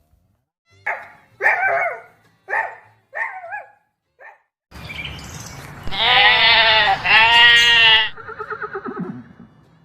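Animal calls: five short calls in the first few seconds, then after a pause two long, wavering calls, followed by a falling, stuttering call that trails off near the end.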